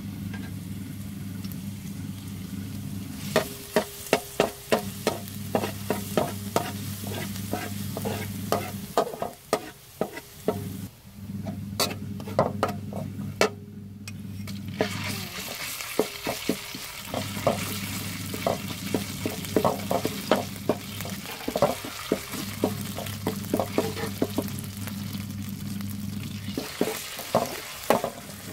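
A metal spatula scrapes and taps against a steel wok as chopped garlic stir-fries in oil, with many sharp clinks. The frying sizzle grows louder about halfway through, when red chili paste goes into the hot oil. A low steady hum runs underneath.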